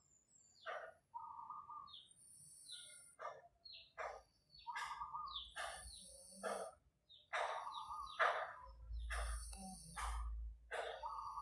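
Birds chirping: a run of short calls, several a second, many of them falling in pitch.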